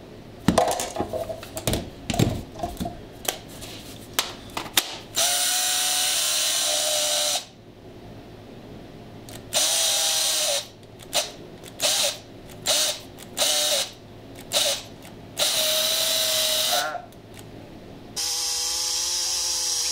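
Ryobi cordless electric chainsaw's brushed DC motor run in on-off trigger bursts: a steady whine for a second or two at a time, with several short blips in between and a last run a little lower in pitch, after a few seconds of clicks and knocks. Its cheap motor is one that the owner says overheats and smokes quickly.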